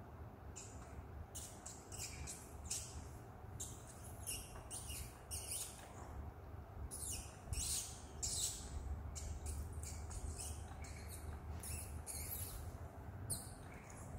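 A macaque sucking milk from a baby bottle: short, hissy squeaks of air and milk through the nipple, irregular, about one or two a second, over a steady low hum.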